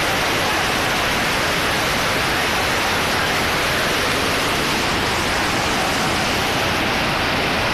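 Floodwater rushing in a steady, loud, unbroken roar of water.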